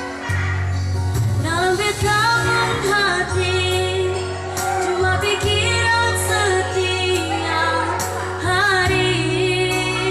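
A woman singing a slow Ambonese pop song over electronic keyboard accompaniment, her held notes wavering with vibrato above a steady bass and chords.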